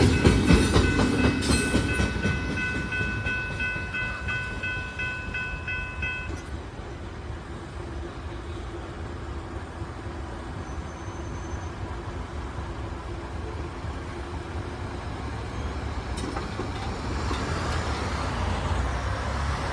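Norfolk Southern mixed freight train's cars rolling past, their wheel rumble loud at first and then fading as the train moves off. A high ringing tone of several pitches sounds until about six seconds in and then stops.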